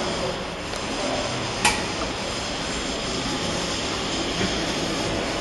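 A steady mechanical drone, with one sharp clank about one and a half seconds in.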